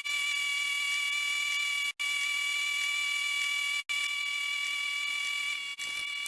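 Steady hiss with several high, steady whining tones, cut off briefly about every two seconds.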